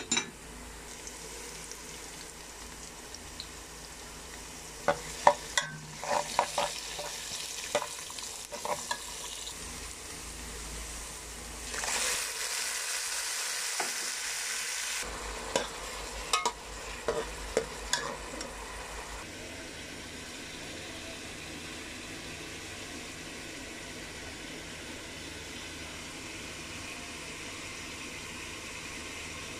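Onions and whole spices frying in oil in an aluminium pot, with a steady sizzle throughout. In two spells a metal spoon stirs, clicking and scraping against the pot. The sizzle turns louder and brighter for about three seconds near the middle.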